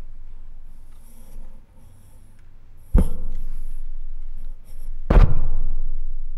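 Two loud, booming thumps about two seconds apart, each trailing off in reverberation, with faint rustling between them.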